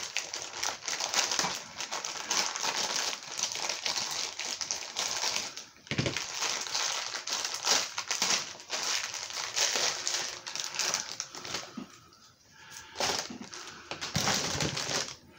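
Plastic packaging being handled and crumpled, a dense irregular crackling rustle that eases off briefly about twelve seconds in.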